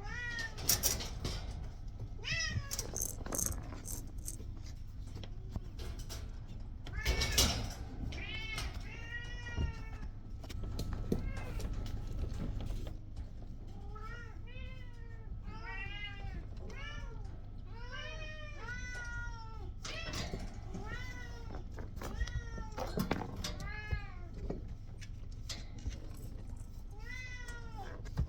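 Kittens meowing over and over: short calls that rise and fall in pitch, coming about once a second through most of the stretch. Scattered knocks and clicks in the first few seconds, over a steady low hum.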